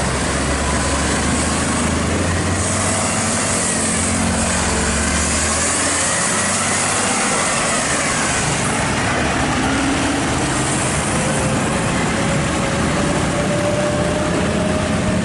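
Heavy vehicle engines and road noise: a deep engine rumble that fades out about six seconds in, then an engine note rising slowly as a vehicle pulls away.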